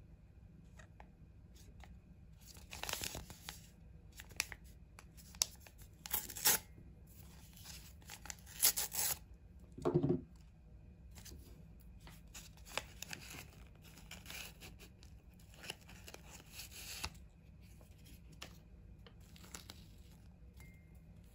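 A paper tea-bag sachet being torn open in a few quick rips, with crinkling and rustling of the paper envelope and the tea bag as it is handled. A short, duller sound about ten seconds in stands out as the loudest moment.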